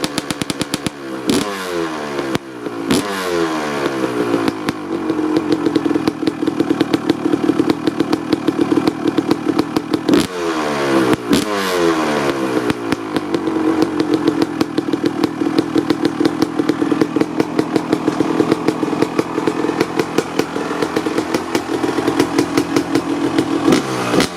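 1995 Honda CR250R single-cylinder two-stroke engine, breathing through a Pro Circuit R-304 silencer, running after a cold start. It idles with a choppy beat and takes several quick throttle blips, each revving up and falling back to idle: two near the start, two more about ten seconds in, and one at the end.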